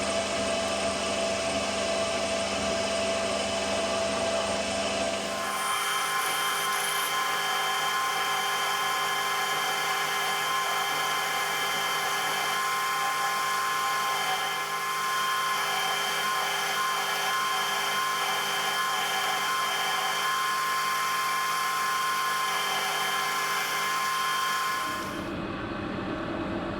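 Metal lathe running with a steady, many-toned whine. The tone shifts higher about five seconds in and drops back near the end.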